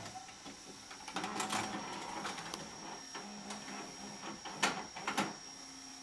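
VCR tape mechanism whirring with irregular sharp clicks, over steady tape hiss and a thin high whine; the two loudest clicks come near the end.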